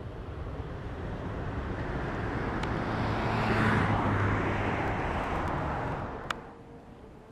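A road vehicle passing by: its noise swells to a peak about halfway and then dies away, and it is cut off sharply with a click near the end.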